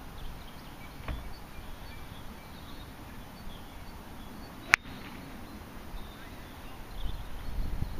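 A golf iron striking the ball off the fairway: one sharp click about two-thirds of the way in, over a quiet outdoor background.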